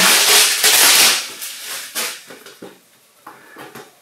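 Hands rummaging inside a box: loud rustling for about the first second, then fainter scattered taps and clicks as a boxed model car is handled.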